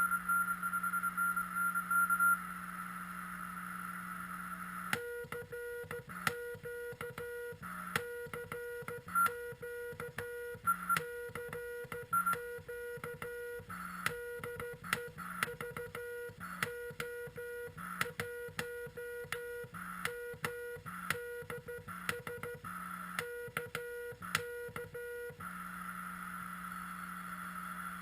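QRP CW transceiver on the 40 m band: receiver hiss with a faint keyed Morse tone for the first couple of seconds. From about five seconds in until near the end, Morse code is sent as a low beeping sidetone with sharp key clicks, and the receiver hiss is muted while it transmits. The hiss comes back for the last few seconds.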